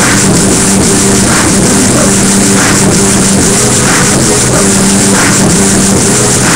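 Loud dance music for krumping: a steady, hard-driven bass line with a sharp hit a little over a second apart.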